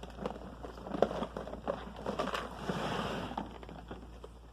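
Handling gear in a plastic fishing tackle box: small clicks and clatter of lures and tackle being moved, a sharp click about a second in, and a rustling stretch around the middle.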